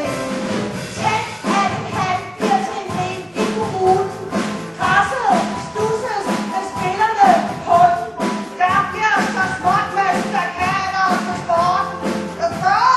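A revue song: singing voices carrying a melody over band accompaniment with a steady beat.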